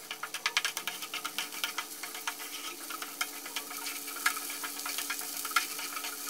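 Sliced shallots sizzling in hot oil in a nonstick frying pan, frying until fragrant, with quick clicks of chopsticks stirring and tapping against the pan. The clicks come thick in the first couple of seconds and grow sparser after.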